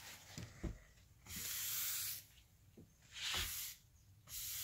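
Cloth rag wiping stain across a solid pine tabletop: three rubbing strokes, each under a second, with a couple of faint taps about half a second in.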